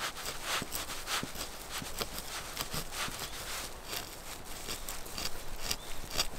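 Knife blade scraping birch bark in short, irregular strokes, two or three a second, shaving off fine tinder for a ferrocerium fire steel.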